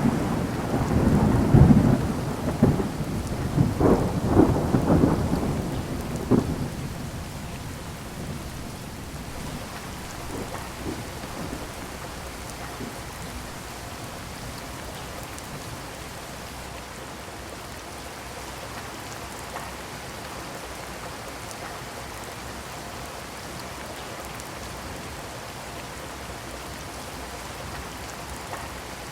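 Thunder rolling over steady rain: a long rumble in roughly the first six seconds with several loud peaks, dying away to leave the even hiss of rainfall.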